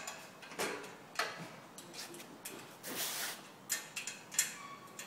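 Light, irregular metal clicks and scrapes of a long screw being pushed through two steel display-frame legs and a nut being fitted onto it by hand.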